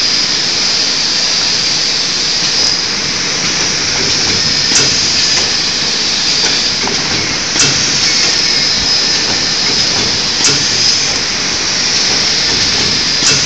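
Automatic plastic film wrapping machine running with a steady hiss, and a sharp click about every three seconds as it cycles.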